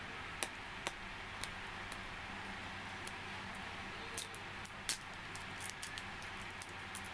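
Small sharp clicks and crinkles of a sealed plastic skincare container being handled and opened, a few at first and coming thick and fast from about four seconds in.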